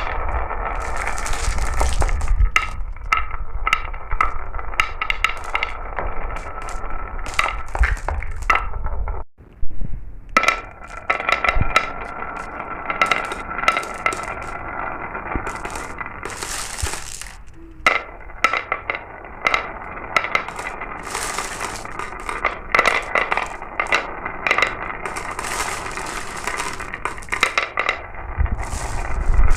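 Glass marbles rolling down a marble run: a continuous rolling rattle with many sharp clicks and clinks as they knock against the track and each other. The sound drops out briefly about nine seconds in.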